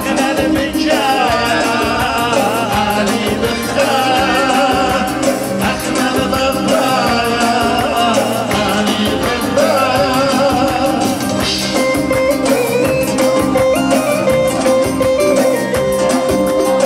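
Live band music: a man sings into a microphone over electronic keyboard and guitar. About two-thirds of the way through, the singing stops and a held instrumental line carries on.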